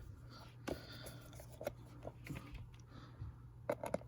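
Scattered faint clicks and taps of hands handling a plastic fan housing and a small screw as the fan's cover is fitted back on.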